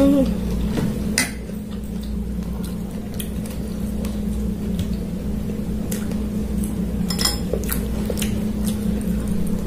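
Scattered clicks of a fork and fingers against a dinner plate while eating, with a sharp one about a second in and a couple more near seven seconds, over a steady low hum.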